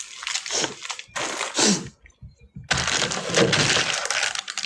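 Crinkly plastic snack bag being handled and shaken, crackling and rustling. There are a couple of short rustles at first, then steady loud crackling from a little under three seconds in.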